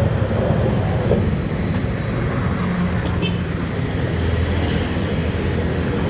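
Steady low rumble of motor-vehicle and road noise.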